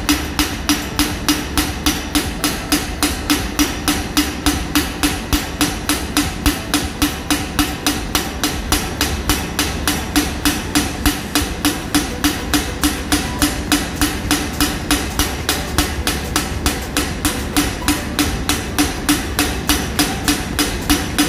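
Valve of a Yanmar diesel generator cylinder head being hand-lapped into its seat with medium lapping paste: a rapid, even tapping, several times a second, as the valve is worked and knocked against the seat. A steady low hum runs underneath.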